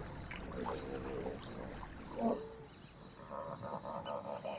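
Hippos grunting and calling in the water, then frogs croaking in a rapid pulsing chorus from about three seconds in.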